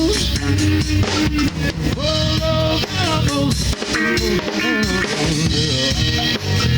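Garage alternative-rock band playing an instrumental passage: drum kit with kick drum and rimshots under electric guitars and bass, captured live on cassette tape.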